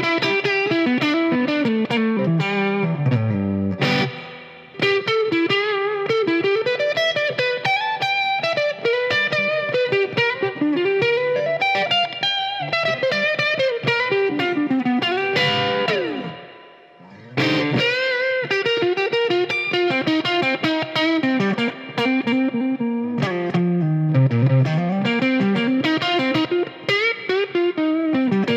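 Squier Telecaster Cabronita electric guitar on its neck pickup through an overdriven amp, playing melodic single-note lead lines with sustained and sliding notes: a smooth, sexy 'woman tone'. The playing stops briefly about 16 seconds in, then resumes.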